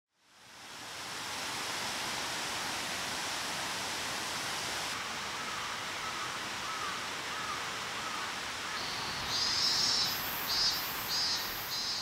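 Outdoor woodland ambience: a steady rushing hiss that fades in over the first second, with faint wavering bird calls through the middle and a bird's repeated high calls, about three a couple of seconds apart, in the last three seconds.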